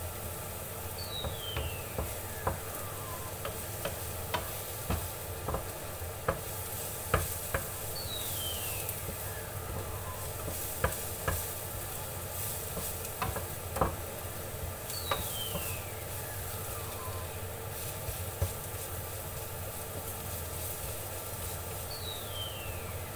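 Minced garlic sizzling in oil in a frying pan as it is stirred, with irregular clicks and knocks of a spatula against the pan over a steady hiss.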